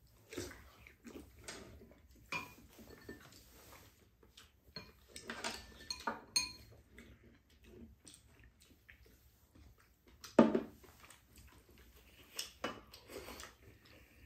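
Mealtime eating sounds: chopsticks and spoons clicking against ceramic bowls and a pan, with people slurping and sipping spicy noodle stew. The sounds come as scattered, irregular clinks and short slurps, with one louder brief sound about ten seconds in.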